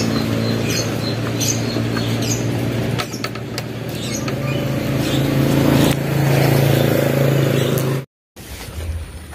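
A motorcycle engine running steadily at idle, with birds chirping over it; it breaks off suddenly near the end.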